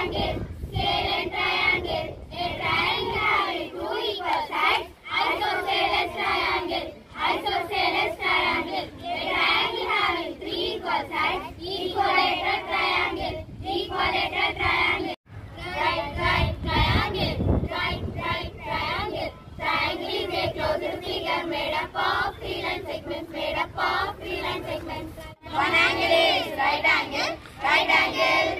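A group of schoolchildren chanting in unison, reciting the kinds of triangle, first girls' voices and then boys' voices. The chant breaks off sharply about halfway and again near the end.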